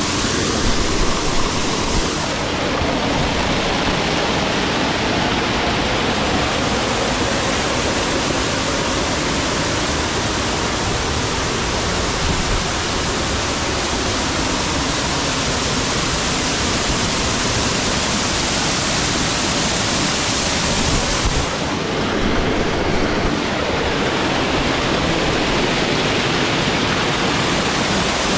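A waterfall pouring steadily onto rock, heard from right beside the falling sheet of water. The rush dulls a little twice, briefly.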